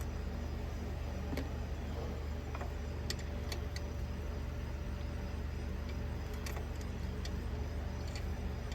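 A few light metallic clicks and taps of small metal parts, such as studs and nuts, being handled, over a steady low hum.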